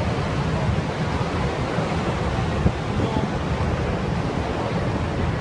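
Steady rush of churning seawater stirred up along a cruise ship's hull, over a strong low rumble, with wind on the microphone.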